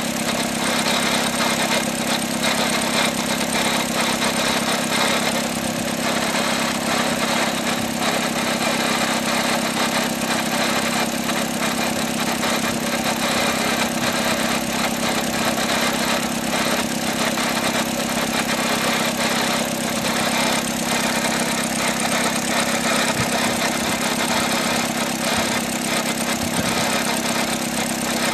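A Great Wall Florid's 1.5 VVT four-cylinder petrol engine idling steadily, with a steady hum among the running noise. The noise comes from the gearbox side, which the mechanic thinks could be the clutch release bearing, the clutch disc springs, or a gearbox low on oil with a grinding pinion.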